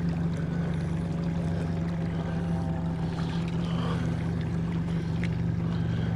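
Mercury outboard motor running steadily at trolling speed, a low even engine hum, with the wash of water behind the boat.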